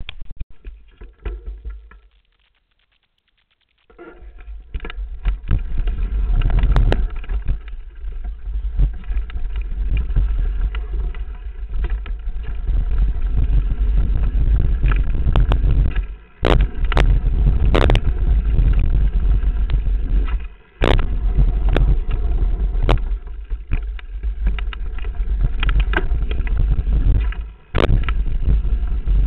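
A mountain bike descending rough dirt singletrack at speed: heavy wind rumble on the camera microphone, with the bike rattling and knocking over bumps. It starts after a short silence about two to four seconds in and drops out briefly three times.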